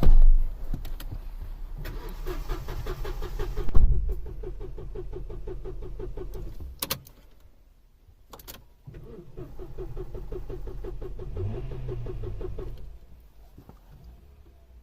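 A car engine cranked on its starter motor during a jump start without catching: two stretches of even, rhythmic cranking with a pause between them, broken by a loud thump and a couple of sharp clicks.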